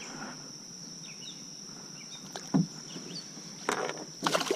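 Knocks and splashing at the side of a kayak as a caught bass is let go: one sharp thump about halfway through, then a cluster of knocks and splashes near the end. A steady high insect drone runs underneath.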